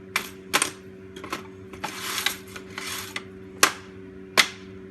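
Sharp clinks and taps of small metal parts and tools being handled on a workbench, with a longer rustle of stripped copper wire and scrap about midway.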